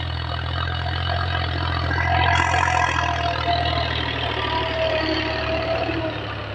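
Powertrac 435 tractor's three-cylinder diesel engine running steadily under load while pulling a spring-tine cultivator through ploughed soil. It grows louder about two seconds in as it passes close and eases off near the end.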